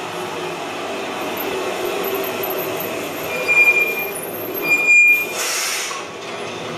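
Recorded train sound effect: a train rumbling in, with two high brake squeals about three and four and a half seconds in, then a short hiss as it comes to a stop.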